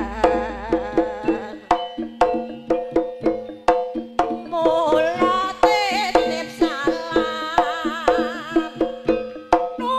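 Jaranan music from a live Javanese ensemble: hand-drum strokes about twice a second over sustained gong-like tones, joined about four and a half seconds in by a wavering, vibrato-laden melody line.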